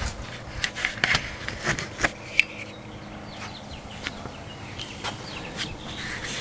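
Light clicks and knocks of a handheld camera being picked up and moved, thickest in the first two and a half seconds, then quieter.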